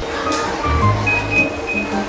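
Background music: a light melody of short notes over a repeating bass line.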